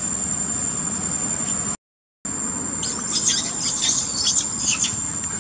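Steady high insect drone, cut by a brief dropout just before halfway. Then a quick cluster of high-pitched squeaks and squeals from young long-tailed macaques play-fighting.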